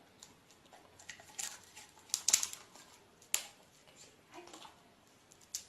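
Irregular light clicks and taps, with a cluster of sharper clicks a little over two seconds in and another single sharp click about a second later.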